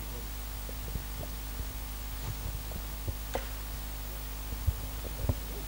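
Steady electrical hum from the sound system, with faint scattered knocks and two low thumps near the end.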